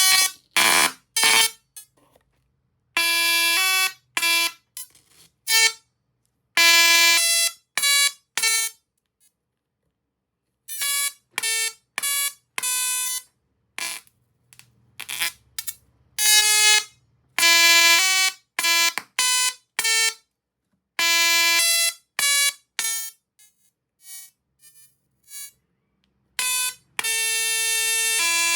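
Tesla coil sparks buzzing in on-off bursts of differing lengths, each a harsh buzzy tone whose pitch changes from burst to burst, like notes played in turn.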